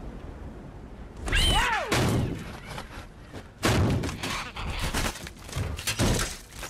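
Disaster-film sound effects on an offshore drilling rig: a low rumble, then a sudden loud hit with a falling whine a little over a second in, and a series of heavy thuds, crashes and shattering from about three and a half seconds on.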